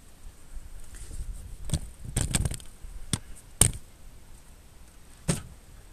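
Sharp clicks and knocks from a steel tape measure being handled and positioned against the wheel: a quick cluster about two seconds in, single knocks after it, the loudest about three and a half seconds in.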